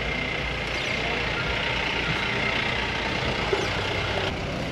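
Jeep engine running steadily at low speed, heard from inside the cabin as a continuous low rumble.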